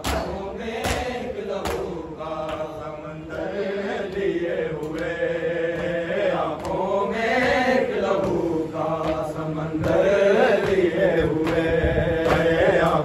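A group of men chanting a noha, an Urdu mourning lament, together in one voice, with sharp hand slaps on bare chests in the matam rhythm. The chant grows louder from about ten seconds in.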